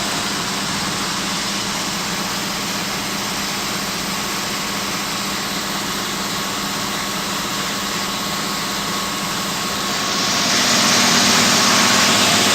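Proton Exora's 1.6-litre turbocharged engine running steadily on its first run after a top overhaul (new head gasket, valves and timing belt). About ten seconds in it grows louder and brighter-toned.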